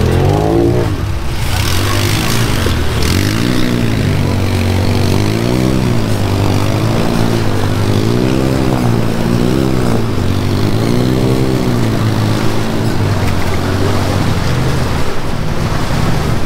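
Vehicle engine running with its revs rising and falling again and again, about every second and a half, over a steady low hum.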